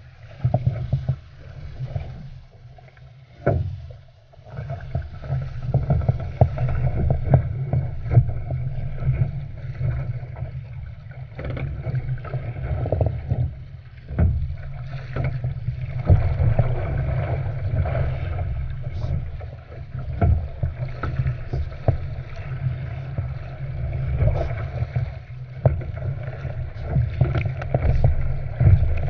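Wind buffeting a deck-mounted microphone on a surfski, a steady low rumble, with water rushing and splashing along the hull and paddle blades slapping into the chop in irregular bursts.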